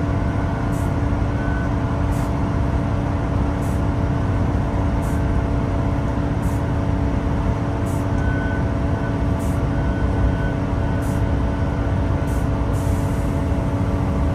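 Great Western Railway Class 166 diesel multiple unit running, heard from inside the carriage: a steady engine drone over the rumble of the wheels, with a light high tick about every second and a half.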